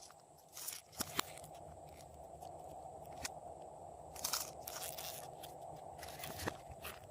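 Slime being squished and kneaded by hand, with a few sharp clicks and pops from air pockets and some crunchy, squelching stretches.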